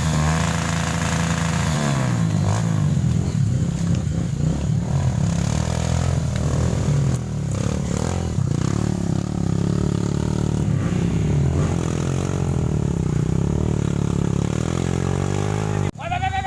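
Trail motorcycle engine revving up and down repeatedly, its pitch rising and falling, cut off abruptly near the end.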